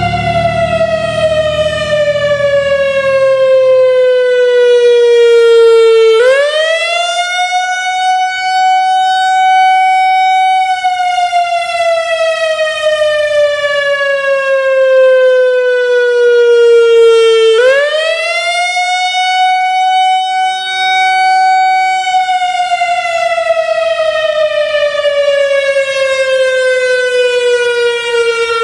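Whelen WPS-3000 electronic outdoor warning siren sounding a slow wail. The pitch sweeps up in about a second, holds high for a few seconds, then slides slowly back down over about six seconds, and the cycle repeats about every eleven seconds.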